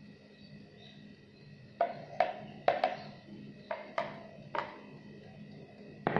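A plastic mixing bowl knocking against a metal mesh strainer in a run of sharp taps, some in quick pairs, while the last of the leche flan custard mixture drains through. One more knock comes near the end as the bowl is set down.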